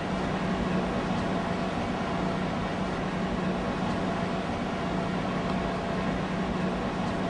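A steady mechanical hum with a low drone under an even hiss, holding the same level throughout.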